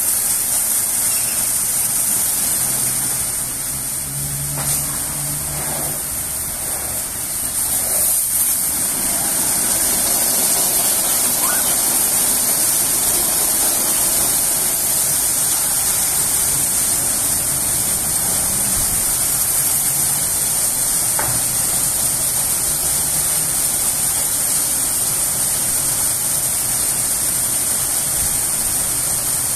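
Automatic gantry car wash running: rotating brushes scrubbing a car while water sprays, a loud, steady hiss and rush. It is a little quieter for a few seconds near the start, then steady from about eight seconds in.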